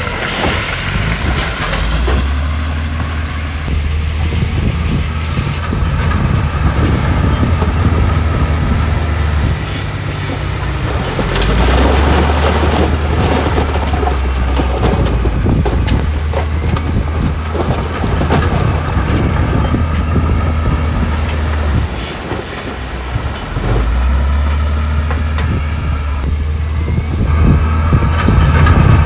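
Heavy diesel earthmoving machinery running under load, with a continuous rattling clatter over the engine. The low engine note dips briefly about a third of the way in and again about three-quarters through, then comes back up.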